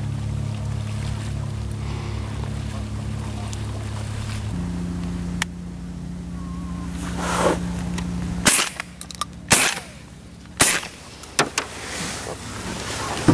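A steady low motor drone, then from about eight and a half seconds in several sharp shotgun shots, roughly a second apart, with a few fainter cracks after them.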